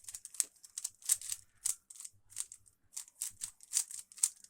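Rubik's cube being scrambled: its plastic layers twisted quickly by hand, giving a run of sharp, uneven clicks about three a second.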